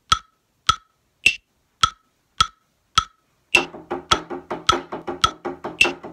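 Metronome clicking at 105 beats per minute, every fourth click higher. About three and a half seconds in, drumsticks start on practice pads in time with it, playing taps and buzz strokes between the clicks.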